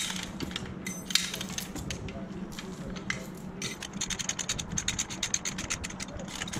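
Lever chain hoist being ratcheted to pull overhead trolley wire taut: a run of sharp metallic clicks from the pawl and chain, coming much faster in the second half where the footage is sped up, over a steady low hum.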